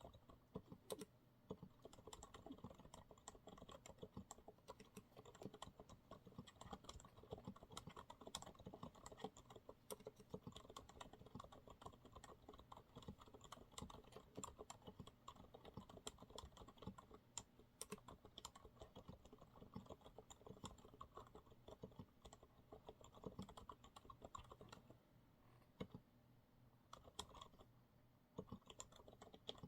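Steady, quiet typing on a Monsgeek MG108W mechanical keyboard with TTC silent brown switches, the dampened keystrokes coming in a fast, irregular patter. The typing eases briefly near the end.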